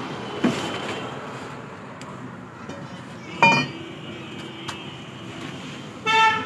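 Metal clanks from dismantled tractor parts: a small knock, then a loud clank that rings briefly about three and a half seconds in. A short, steady-pitched tone sounds near the end.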